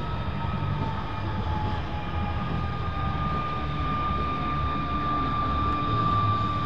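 MiG-17F's Klimov VK-1F turbojet whining at low power as the jet rolls along the runway, a steady high whine over a dull rumble, its pitch sagging slightly in the first few seconds.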